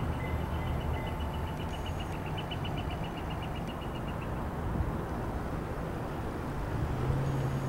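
An EMD SW1 diesel switcher locomotive's engine runs with a steady low rumble as it moves past.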